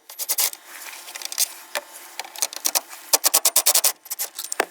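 Metal hand tools clicking and rattling on a pickup's steering column: scattered sharp metallic clicks and scrapes, then a quick run of about ten even clicks a little after three seconds in.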